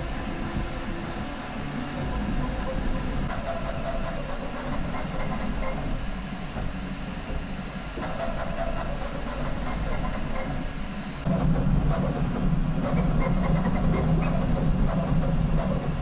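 QIDI X-smart 3 CoreXY 3D printer printing a calibration cube at high speed: a steady mechanical whir of stepper motors and fans, with tones that shift as the print head changes direction. It gets louder about eleven seconds in.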